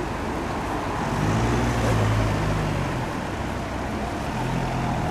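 Road traffic: cars driving past on the road, a steady engine and tyre hum that swells about a second in and again near the end.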